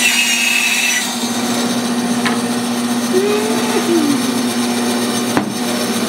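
Bandsaw running with a steady motor hum, its blade finishing a cut through a chestnut board and then running free, with a brief high squeal near the start and a sharp knock about five seconds in. The blade is dull enough that the owner thinks it needs replacing.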